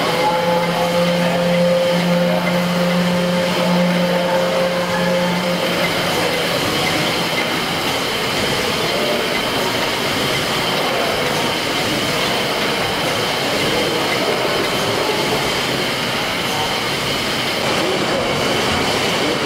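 Large horizontal mill steam engine running steadily. A steady hum is heard along with it for the first five seconds or so, then stops.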